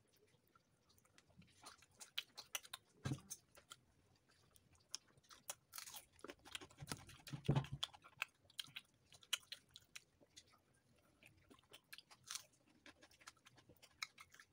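A person chewing and biting paratha with potato curry close to the microphone: irregular soft smacking and crunching mouth sounds. There is a low thump about three seconds in and a louder bump about seven and a half seconds in.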